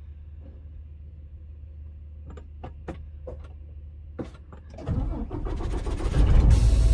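A few sharp clicks and knocks in a truck cab, then about five seconds in a semi truck's diesel engine starts and runs, getting louder near the end.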